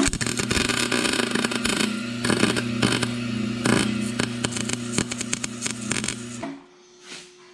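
Wire-feed (MIG) welder arc welding steel on a car's frame rail: a dense crackle over a steady electrical hum, starting at once and cutting off after about six and a half seconds.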